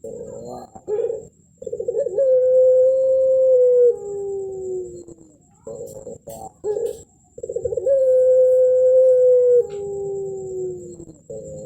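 Puter pelung dove (a long-calling Barbary dove) giving its drawn-out 'melung' coo twice. Each coo opens with a few short stuttered notes, holds a long steady tone for about two seconds, then drops into a lower, falling ending. A third coo begins near the end.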